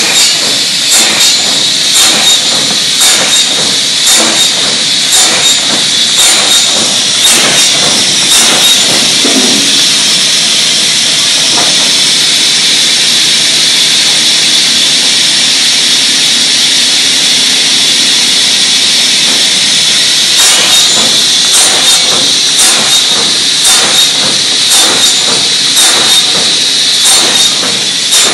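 Automatic cut-off saw for shortening wooden pallet blocks, running with a steady high hiss and whine. Repeated short knocks come about one or two a second as blocks are fed and cut. The knocks drop away for roughly ten seconds in the middle and resume near the end.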